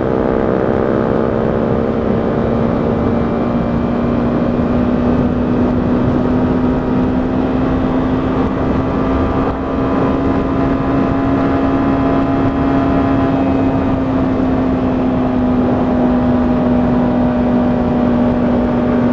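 125cc motorcycle engine running steadily at cruising speed, its note drifting up slightly through the middle and easing back, over a constant rush of wind noise.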